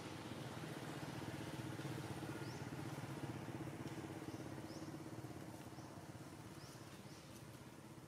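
A motor vehicle engine running steadily nearby, fading slowly toward the end. Short high rising chirps come through several times over it.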